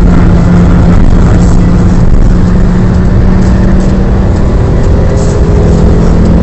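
Fiat Stilo Abarth's 2.4-litre five-cylinder engine pulling at steady revs on track, mixed with tyre and wind noise, heard from inside the cabin through a phone microphone at a very loud level.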